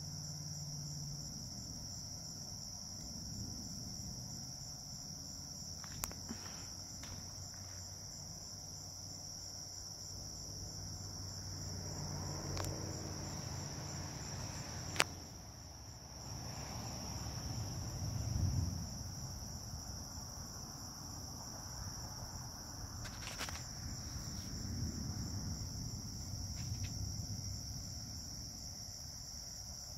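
Crickets trilling steadily while low rumbles of distant thunder swell and fade several times, the strongest a little past the middle. A few sharp clicks, the loudest about halfway through.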